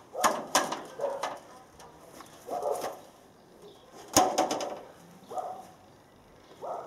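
Aluminium stepladder clanking as it is handled on the ground: a pair of sharp metallic knocks near the start and a louder single one about four seconds in. A bird calls several times in between.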